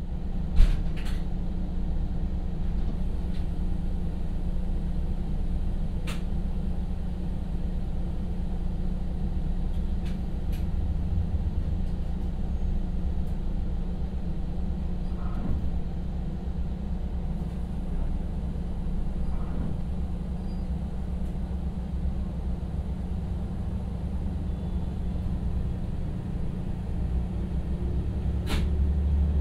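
KTR700 diesel railcar's engine idling with a steady low hum while the car stands at the platform, heard from inside the car, with a few sharp clicks. About a second before the end the engine note rises and grows louder as the railcar starts to pull away.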